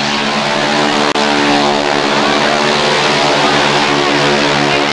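Propeller aircraft's piston engine running loud and steady at a constant pitch.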